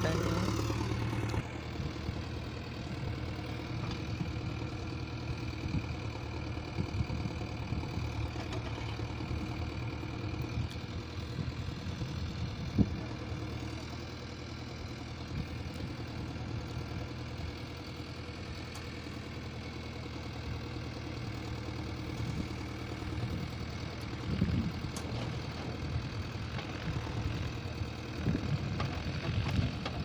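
Diesel engines of a JCB 3DX backhoe loader and a Mahindra tractor running steadily at idle while the backhoe loads soil into the tractor's trolley, with one sharp knock near the middle and a few lighter knocks later.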